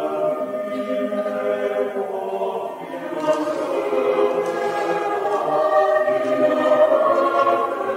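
Choir singing a canticle in long held chords, with a brief dip and a change of chord about three seconds in.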